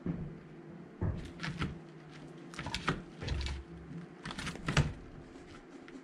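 A wooden food puzzle with plastic pegs knocked and clattered by a Harris's hawk pulling at its pieces: a run of sharp knocks and clacks in several short clusters, the loudest a little before the end.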